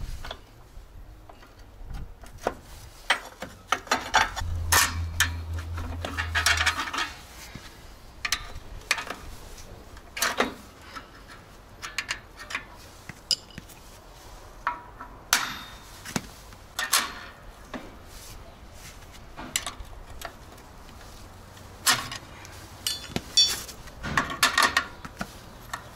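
Irregular metal clinks, knocks and scrapes of a long screwdriver prying steel brake-shoe springs into place on a truck drum brake, with short bursts of scraping a few seconds in and near the end.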